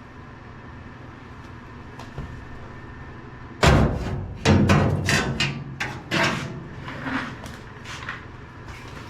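Quiet shop room tone, then from about three and a half seconds in a run of loud knocks and clunks, several in quick succession, like parts being handled and set down.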